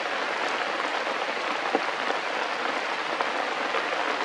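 Steady rain falling on leaves and forest undergrowth, an even hiss with a few faint taps.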